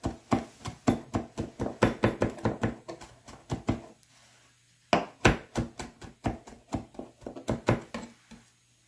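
Chef's knife rapidly chopping fresh rosemary and thyme on a plastic cutting board, the blade knocking the board about five or six times a second. The chopping pauses for about a second roughly four seconds in, then resumes.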